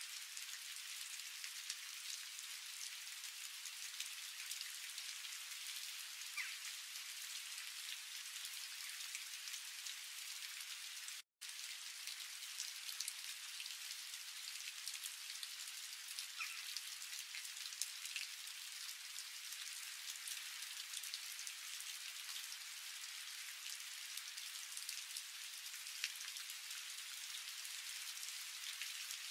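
Faint, steady crackling hiss of food sizzling in a frying pan, dotted with tiny pops. It cuts out for an instant about eleven seconds in.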